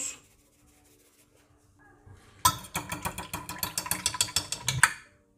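Fork beating a raw egg in a ceramic dish: fast, repeated clicks of the metal tines striking the dish. They start about halfway in and stop just before the end.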